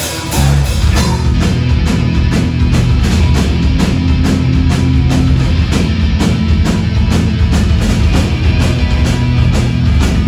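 Live rock band playing an original song on two electric guitars, electric bass and drum kit. The full band comes in loud about half a second in after a lighter guitar part, then drives on with a steady drum beat and heavy bass.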